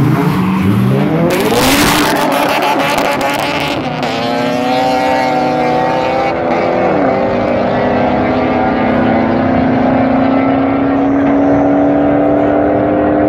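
A Dodge Challenger and an older sedan launching from a standing start in a street drag race and accelerating away, engines revving hard with a loud rush of noise just after the launch. The engine pitch climbs, drops once at a gear change about six seconds in, then keeps climbing slowly as the cars pull away.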